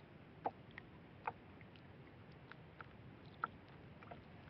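Quiet scene with about eight faint, sharp clicks and small taps, scattered irregularly over a soft, steady hiss.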